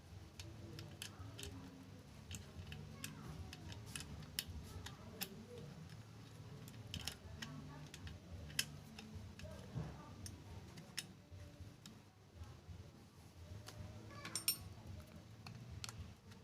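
Scattered light clicks and small metallic taps from hands and tools working on a sewing machine's mechanism, faint over a low background hum.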